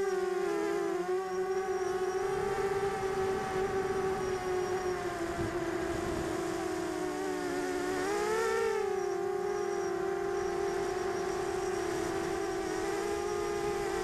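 Brushless motors and propellers of a 250-size quadcopter whining steadily as it flies, heard through its onboard camera, with wind rumble underneath. The pitch dips and then swoops up and back down about eight seconds in as the motor speed changes during a banking turn.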